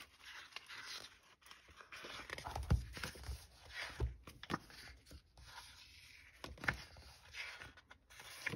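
Pages of a paper sticker book being turned and handled: soft, irregular paper rustling with a few light knocks.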